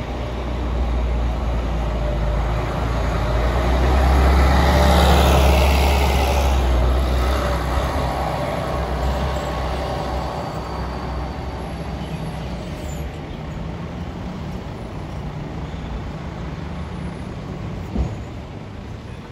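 City bus pulling away from a stop: its engine rumble builds as it accelerates, peaks about five seconds in, then fades as it drives off down the street. A single sharp knock near the end.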